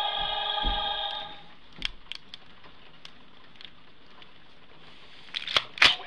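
Handheld electronic light-up block-matching game toy playing a synthesized electronic tone, several pitches held together after a rising sweep, which cuts off about a second and a half in. Then come a few scattered plastic clicks, and a quick run of louder clicks near the end as its coloured end blocks are pressed and slid.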